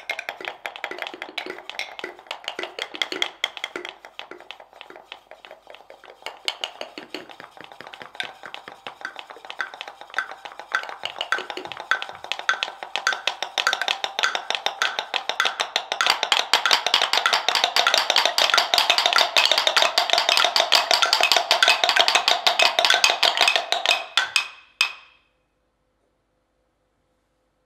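Seven wooden mortars tapped and struck with wooden pestles in a fast, dense clatter of ringing clicks. It builds louder partway through, then stops abruptly near the end.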